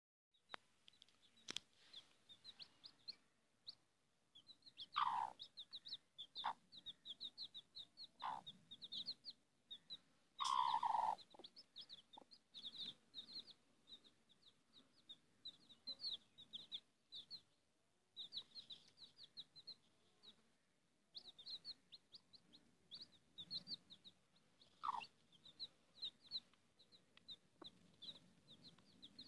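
Newly hatched Aseel chicks peeping, a steady run of short high chirps, with the mother hen clucking a few times in a lower, falling voice, loudest about five and ten seconds in.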